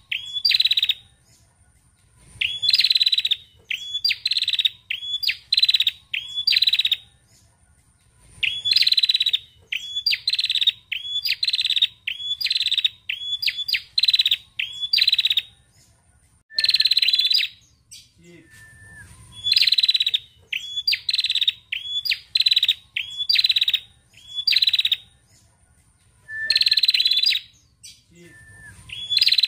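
Female tailorbird singing: rapid runs of sharp, high chirps, several notes to a burst, repeated every second or two with short pauses.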